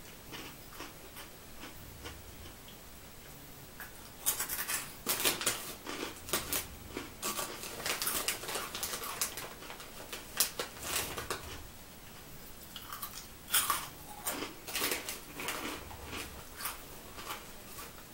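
Crunchy Cheetos being bitten and chewed close to the microphone. After a few quiet seconds comes a dense run of sharp crunches, then a short pause, then another run of crunching.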